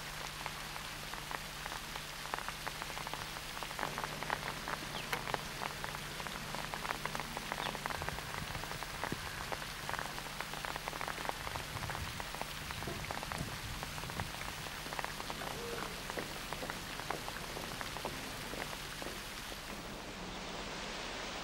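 Rain falling, with many irregular drops ticking on hard surfaces over a steady hiss.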